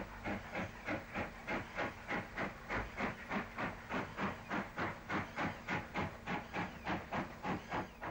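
Former Tralee and Dingle narrow-gauge steam tank locomotive hauling its train, its exhaust beating steadily about three chuffs a second with steam hiss between them, heard from the coaches behind.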